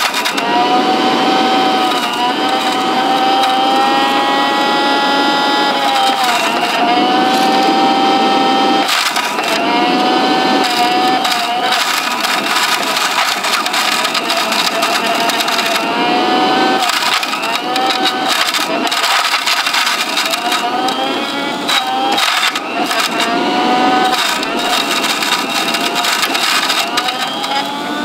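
Electrolux Trivac stick vacuum's motor running with a steady high whine that sags in pitch and recovers every few seconds as it sucks in dirt, with a continual crackle and rattle of grit passing through it and blowing out of the opened housing.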